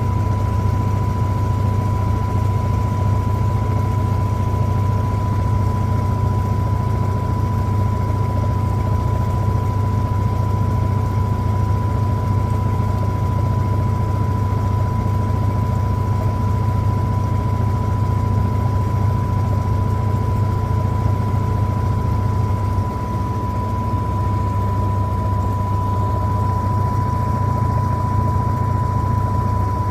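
Electrolux LTA15 top-loading washing machine running with a steady motor hum and a steady high whine, easing slightly about two-thirds of the way through.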